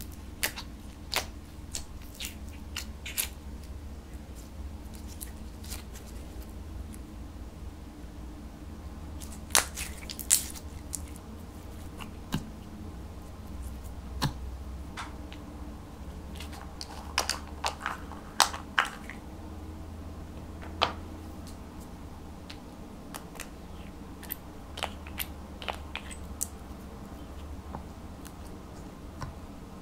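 Plastic spoon crushing and stirring crumbled pink makeup powder and glitter in a glass baking dish, with scattered sharp clicks and taps, some in quick clusters, over a low steady hum.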